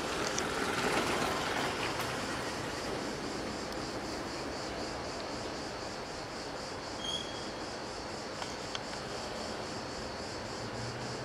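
A motor scooter rides past over the cobblestones, loudest about a second in and fading by two seconds. After it, steady street noise with a high, pulsing chirring of insects.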